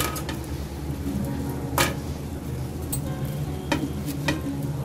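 Hot oil sizzling steadily as bread slices deep-fry, with a few light clicks and taps of crisp fried bread pieces being handled on a plate, the sharpest about two seconds in.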